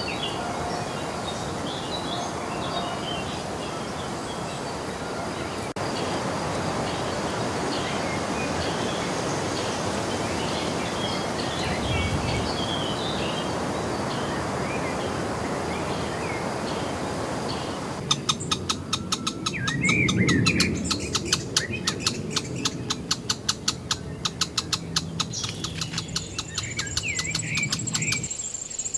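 Birds chirping and calling over a steady background hiss. About two-thirds of the way in, the background changes and a fast, even ticking comes in under the calls.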